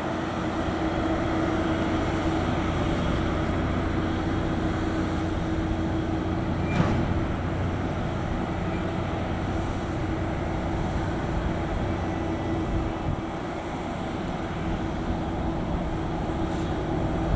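Diesel engine of a railway track-maintenance motor car running steadily while shunting rail-loaded flat wagons, with one sharp metallic clank about seven seconds in.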